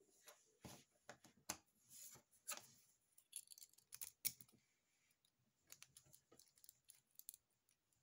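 Small metal clicks and light rattles of a 40 mm laminated steel padlock and lock-picking tools being handled, irregular and quiet, with a denser run of clicks about four seconds in.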